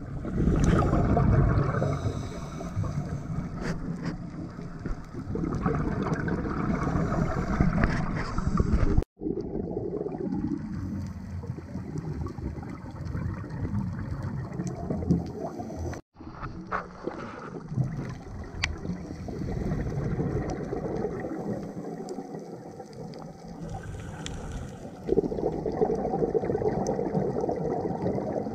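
Underwater sound heard through a diving camera's housing: a steady wash of water noise and gurgling, with louder rushes of a scuba diver's exhaled bubbles near the start and again near the end. The sound cuts out for an instant twice.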